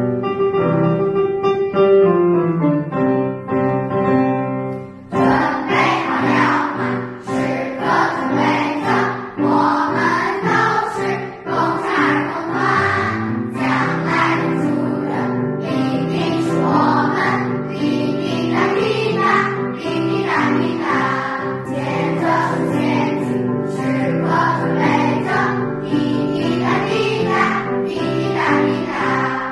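Piano introduction, then a children's choir joins in about five seconds in, singing a song in unison with piano accompaniment.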